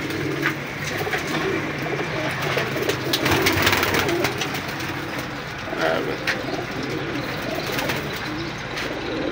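A loft of domestic pigeons cooing, many low wavering calls overlapping throughout, with a flurry of wing flaps and scuffles about three seconds in.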